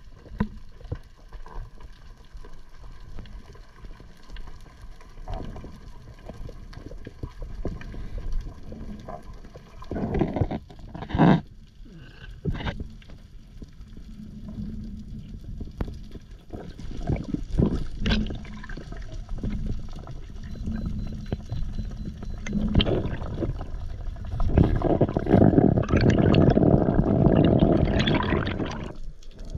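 Water sounds on a spearfisherman's action camera: a low rumbling wash with scattered clicks and knocks, and a louder rushing of water over the last few seconds.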